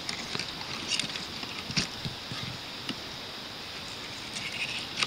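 Footsteps in leaf litter and twigs: a few scattered crackles and rustles over a steady hiss.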